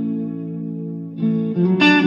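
Background music on guitar with effects: a held chord fades, then new notes are struck near the end.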